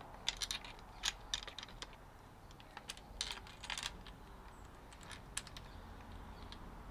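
Scattered light clicks and taps as a metal bolt and an orange plastic Acerbis handguard are handled and fitted against a motorcycle's handlebar end, most of them in the first few seconds and fewer after.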